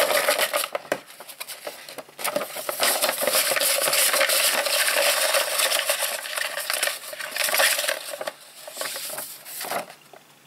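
A hand stirring through folded paper slips in a plastic bowl under a sheet of paper: a busy rustling and crackling, with the slips clicking against the bowl. It is loudest from about two to eight seconds in and thins out near the end, as a slip is picked out.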